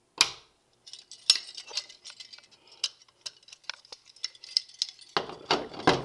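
A Standard Electric fire alarm pull station being reset by hand, with its key. There is a sharp click just after the start, then a run of small clicks and light metallic rattles, and louder handling noise near the end as the station is closed.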